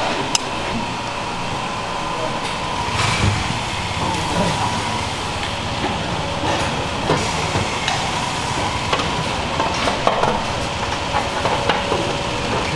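Metal tongs clicking and scraping against stainless-steel bowls as portions of seasoned vegetables are picked up and dropped into a mixing bowl, with scattered sharp clinks over a steady background hubbub of voices and market noise.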